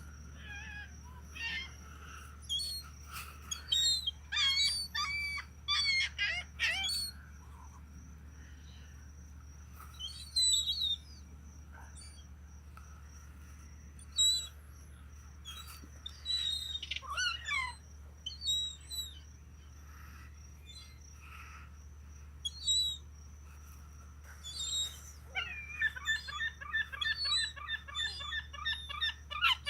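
Gulls calling in scattered squawks, with a fast run of repeated notes near the end.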